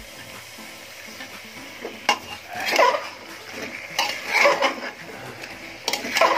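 Metal spatula scraping and clanking against the inside of a pressure cooker as raw mutton pieces are stirred, in several strokes starting about two seconds in.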